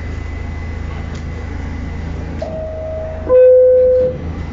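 New York City subway car's door-closing chime: two descending tones, the second lower, louder and held a little longer, about two and a half seconds in. Under it runs the steady low hum of the train standing at the platform.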